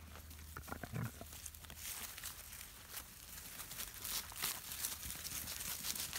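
A Labrador puppy gives a short growl about a second in while tugging on a cotton work glove, followed by the light crackling and rustling of dry grass and fallen leaves under the puppies' paws.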